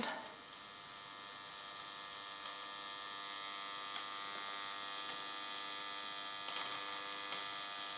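Steady mains hum from a 1947 Astor Mickey KM valve radio's speaker, slowly growing louder as the set warms up after being powered to 220 volts. A faint click about four seconds in.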